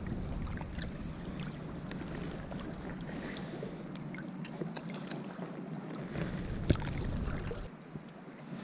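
Water sloshing and splashing close to the microphone as a caught snook is revived at the surface and let go, with wind rumbling on the microphone. A sharper splash comes about two-thirds of the way in, and the wind rumble drops away near the end.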